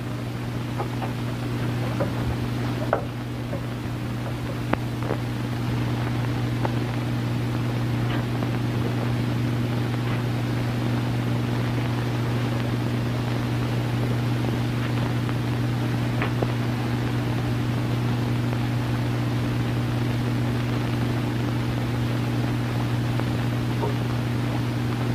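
Steady low hum over even hiss, with a few faint scattered clicks: the background noise of an early sound-film soundtrack, with no dialogue or music.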